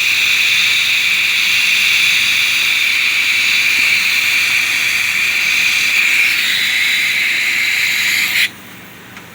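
Compressed air from a shop air hose rushing through a lawn mower's gas tank in a loud, steady hiss that cuts off suddenly near the end.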